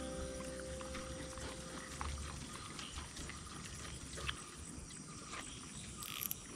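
Footsteps through wet grass and marshy ground: irregular soft clicks and squelches with some rustling, with brief hissy swishes near the end. Background music fades out in the first two seconds.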